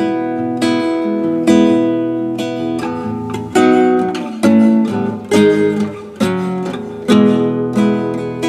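Acoustic guitar playing an instrumental passage, about one plucked chord a second, each left to ring and fade.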